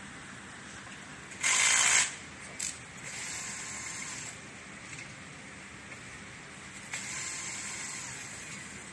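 Cordless drill-driver turning screws at a small motor's mounting bracket, in short runs: a loud brief burst about a second and a half in, then two longer runs of a second or so each, its motor pitch rising as it spins up and falling as it stops.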